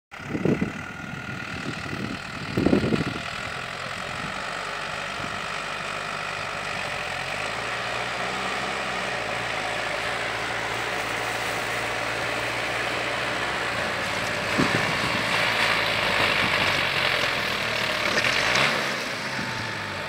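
Diesel farm tractor engine running steadily under load as it tows a stuck car out of soft beach sand. The engine note gets louder and rougher for a few seconds near the end, and there are a couple of short low thumps near the start.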